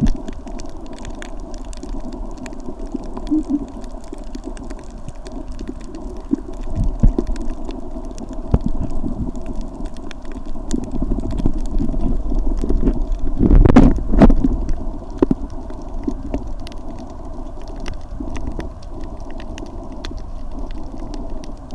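Underwater sound picked up by a camera in a waterproof housing: a muffled low rumble with many small scattered clicks, swelling louder for a second or two about two-thirds of the way through.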